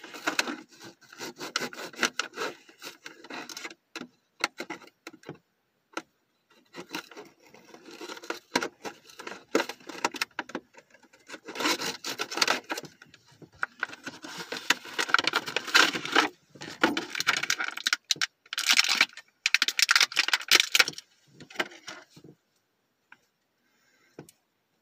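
Plastic-and-cardboard action-figure packaging being worked open by hand: irregular crinkling, crackling and scraping, busiest in the second half and stopping a couple of seconds before the end.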